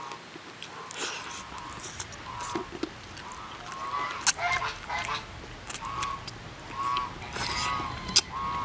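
Geese honking in short calls, about one a second, with sharp clicks of chopsticks and chewing in between.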